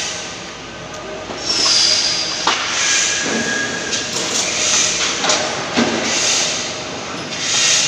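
Loud metal-workshop noise: a hissing rush that swells every second or so, with brief squealing tones and a few sharp metal clanks.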